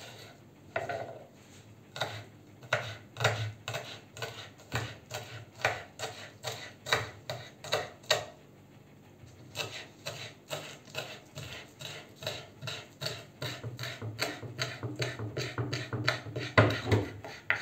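Kitchen knife finely chopping fresh green garlic on a wooden cutting board: a long run of quick, even chops, about two or three a second, with a short pause about halfway through.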